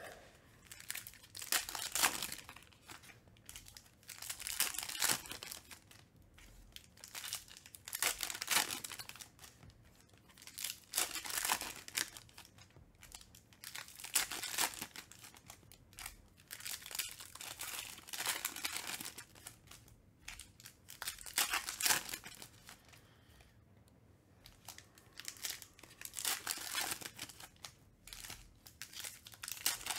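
Shiny foil wrappers of Panini Recon basketball card packs being torn open and crinkled by hand. The noisy rustling comes in repeated bursts every one to three seconds.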